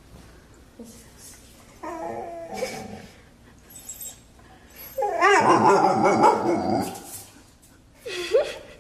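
A dog whining and yelping in short pitched calls, with a louder, longer run of calls about five to seven seconds in.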